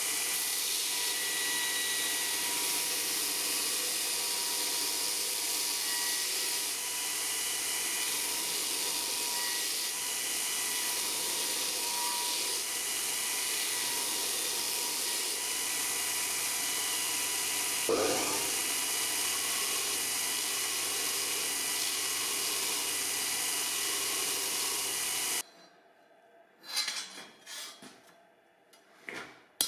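A power tool working steel runs steadily and without a break, then cuts off abruptly a few seconds before the end. A few short knocks follow.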